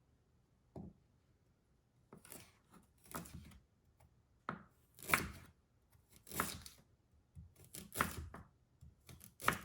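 Hand food-preparation sounds: about eight short, uneven cutting or tearing strokes, roughly one a second, some with a quick rising scrape.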